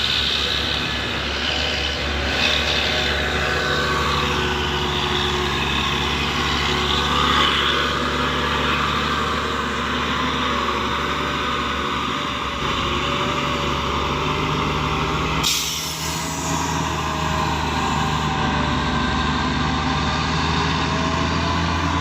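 Heavy truck engines running steadily on a steep uphill grade, with a low drone throughout. A short sharp noise cuts in about fifteen seconds in.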